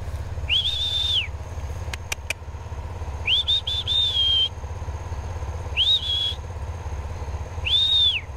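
A person whistling to call pigs: four high whistled calls, each rising, holding and falling, the second broken into several short quick notes. A steady low motor drone runs underneath, with a couple of sharp clicks about two seconds in.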